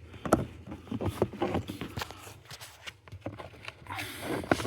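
Handling noise of a wire being worked through a rubber firewall grommet: scattered clicks, knocks and rustles, with a longer scraping rustle near the end.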